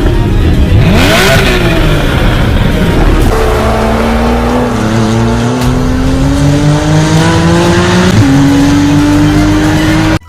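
Sports car engine revving and accelerating through the gears, its pitch climbing steadily and dropping at gear changes about three seconds in and again about eight seconds in. Loud, and it cuts off suddenly near the end.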